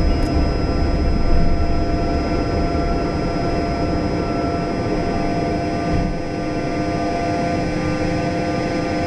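Learjet 45's rear-mounted Honeywell TFE731 turbofans at takeoff power in the initial climb, heard inside the cabin: a steady drone with several steady whining tones over a heavy low rumble. The rumble eases a little about six seconds in.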